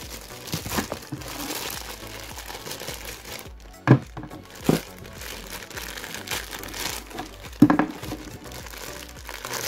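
Clear plastic packaging bags crinkling and rustling as a figure and its parts are pulled out and handled, with two brief louder sounds about four and eight seconds in.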